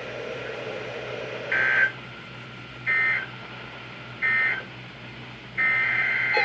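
Emergency Alert System SAME data bursts over radio hiss: three short, harsh two-tone digital bursts about 1.3 s apart, the end-of-message code that closes a weather alert. Another data burst starts near the end.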